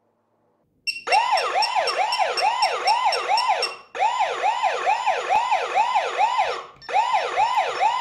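Panic-alarm siren of a eufy home alarm kit, set off by holding the keypad's emergency button. It starts about a second in: a loud rising-and-falling wail at about two sweeps a second, in runs of about three seconds with short breaks between them.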